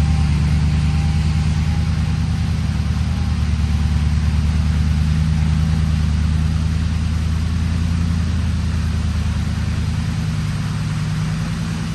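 Off-road vehicle's engine running steadily at low revs, a deep even drone that eases off a little in the second half.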